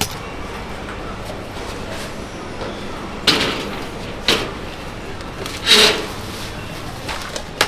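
Several short clattering knocks of objects being handled, about a second apart, the third a longer scrape of about half a second, then a sharp click near the end, over a steady background hum.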